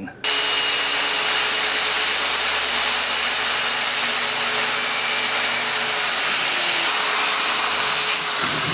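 Corded circular saw starting up and cutting through a thin plywood sheet along a straight-edge guide. Its high motor whine sits steady over the cutting noise, drops in pitch about six seconds in, recovers, and drops again near the end.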